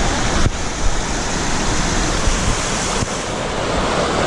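Steady, loud rush of a fast-flowing mountain river, an even hiss of water.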